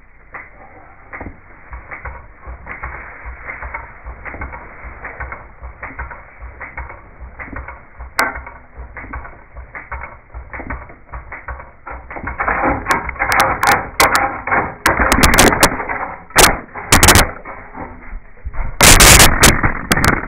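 Wood lathe roughing an off-centre green-wood blank: the gouge cuts into the spinning, wobbling wood in a rapid run of knocks, which grows much louder in the second half. A loud clattering burst comes near the end.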